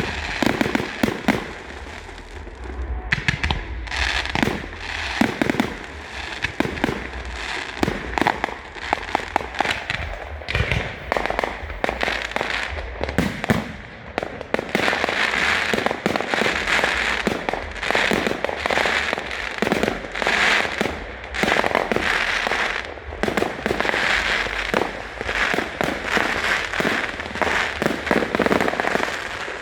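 Fireworks display: bangs going off in quick succession over dense, continuous crackling.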